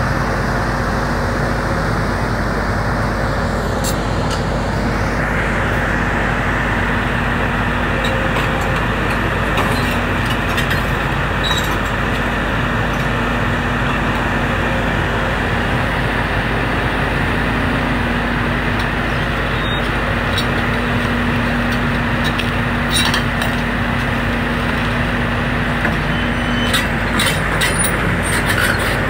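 Volvo tracked excavator's diesel engine and hydraulics running steadily as its demolition grab works the timber wreckage, with scattered cracks and knocks of breaking wood and debris, more of them near the end.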